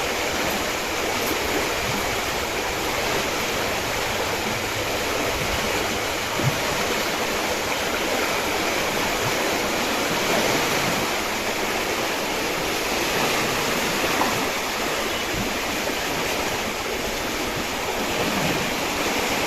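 Floodwater rushing steadily through a river sluice gate into a canal, a constant even rush with no let-up.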